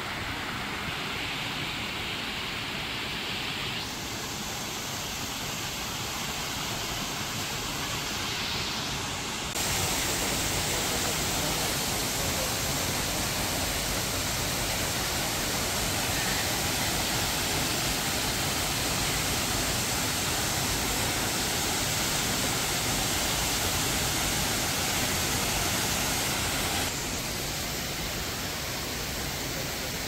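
Steady rushing roar of a waterfall, stepping up abruptly to a louder, fuller rush about ten seconds in and dropping back abruptly near the end.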